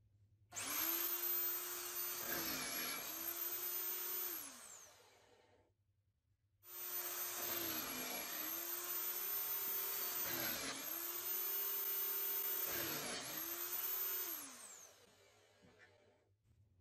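Drill running a bimetal hole saw, cutting holes through a wooden board in two runs, a short one and a longer one. The motor's whine sags in pitch several times as the saw teeth bite into the wood, then winds down at the end of each run.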